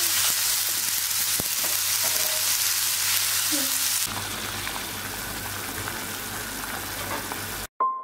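Broccoli sizzling in a hot frying pan as beaten egg is poured over it. The sizzle drops to a quieter hiss about halfway through and cuts off suddenly just before the end.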